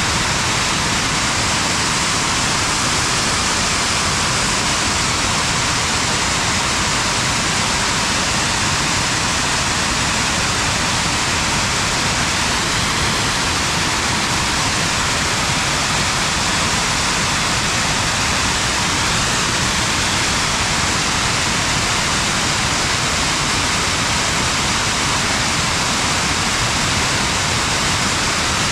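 Geyser vent jetting steam with a steady, deafening hiss.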